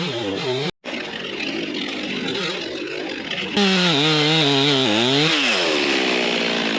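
Stihl chainsaw revving, its engine speed rising and falling several times, with a brief cut-out of the sound about a second in; near the end it is held at a high, steady speed.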